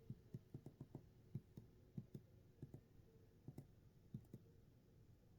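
Faint, irregularly spaced small clicks, about fifteen of them, in near silence.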